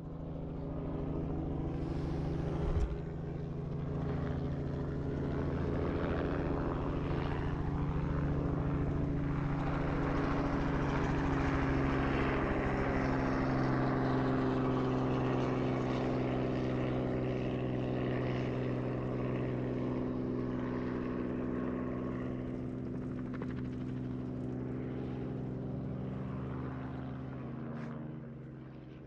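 An engine running steadily with a low drone, its noise swelling to a peak about midway and easing off again, then fading out at the end. A brief knock sounds about three seconds in.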